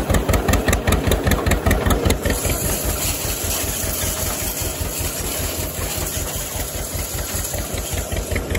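Tractor engine running at hay-baling work, with a regular pulsing beat of about five a second that softens in the middle and comes back near the end.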